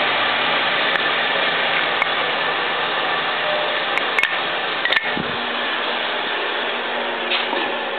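Woodworking machinery running with a steady whir. A few short clicks come about halfway through.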